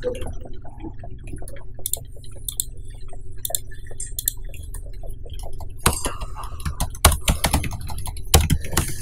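Irregular keystrokes on a computer keyboard and mouse clicks, with a few louder clicks in the second half, over a steady low hum.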